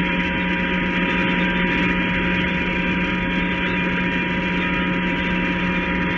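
Emergency Alert System attention signal, a thin steady tone, heard through a noisy radio reception under heavy hiss and a steady low electrical hum.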